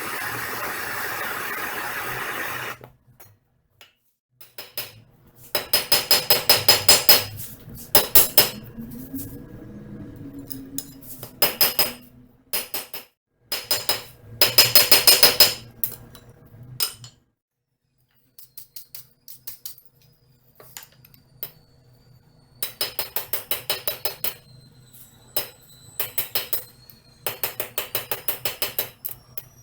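Hand hammer striking hot mild steel bar stock on an anvil in quick runs of blows with short pauses, the anvil ringing after the strikes, as the bar's square corners are forged round. It opens with a steady rushing noise that cuts off about three seconds in.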